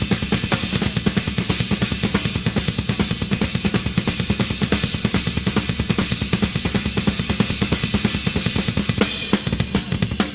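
Rock drum kit in a live drum solo: fast, unbroken strokes on the toms and bass drum with cymbals over them. A brighter cymbal wash comes in near the end.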